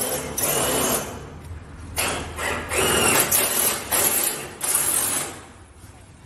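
Heavy steel security door being shifted in its metal frame: four loud bursts of scraping and knocking of metal on metal, each about a second long, with a faint squeak in the middle.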